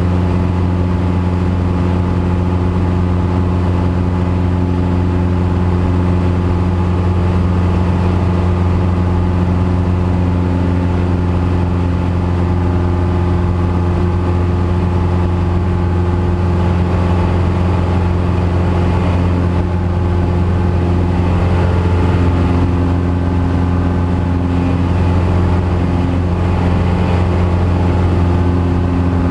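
Engine and propeller of a single-engine light aircraft droning steadily in flight, heard inside the cockpit as a loud, even hum.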